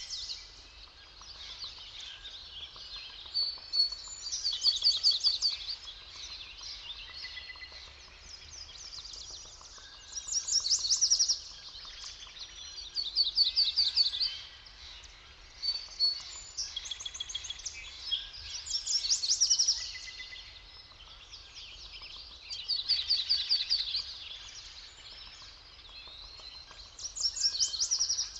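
Forest songbirds singing: a fast, high trilled phrase repeats every few seconds, with quieter chirps in between.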